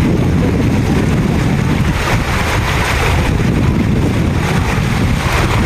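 Steady loud rushing of stream water with wind buffeting the microphone.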